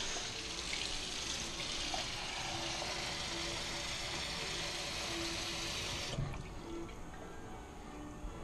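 Kitchen tap running water into a glass measuring cup held over a stainless steel sink. It shuts off suddenly about six seconds in.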